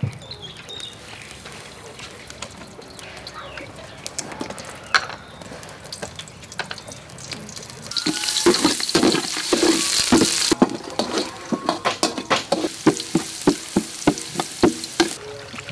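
Chopped garlic sizzling in hot cooking oil in a metal pot, starting loud about eight seconds in, then a metal spoon stirring and scraping against the pot with a rapid run of clinks while it keeps frying.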